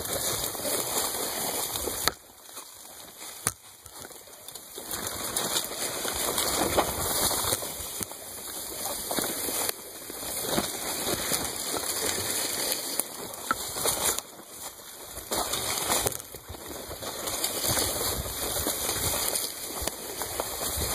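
Bicycle riding along an overgrown dirt trail: tyres crunching over dry grass and litter while palmetto fronds and tall grass brush and swish against the bike, with a few sharp clicks and rattles. The noise comes and goes in loudness, easing off briefly a few times.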